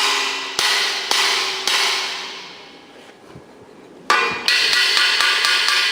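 Hammer blows on the metal of a bicycle frame, evenly paced about twice a second, each ringing out. After a pause of about two seconds comes one hard blow, then a quick run of lighter, faster ringing taps.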